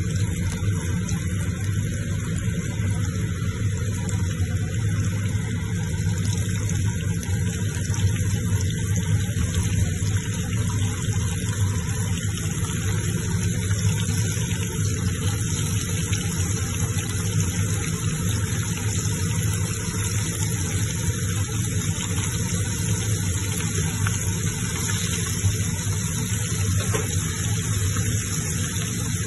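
Oil sizzling steadily as breaded pork cutlets (tonkatsu) deep-fry in a wok, with a steady low hum underneath.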